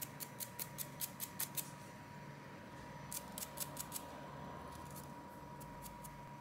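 Runs of light, sharp clicks from a small hand tool being worked on the phone's parts: a quick run of about six clicks a second at first, a shorter run a couple of seconds later and a few more near the end, over a faint steady high tone.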